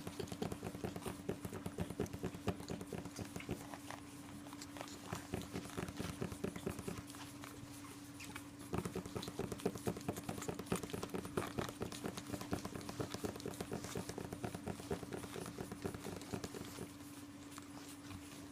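Pug puppies scrabbling about in a fabric playpen, their claws pattering and scratching on the quilted pad and pen wall in uneven bursts, busiest near the start and again about halfway through. A steady low hum runs underneath.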